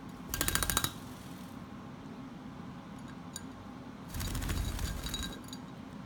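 White-bellied caique's beak rattling rapidly against a drinking glass as it dips into the water, in two bursts of fast clinks with a glassy ring: a short one near the start and a longer one about four seconds in.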